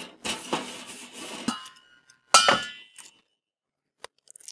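Grill brush scraping across the cooking grate of a Weber charcoal kettle grill in a few quick strokes. After a pause, a single loud metallic clink rings out, and a few small clicks follow near the end.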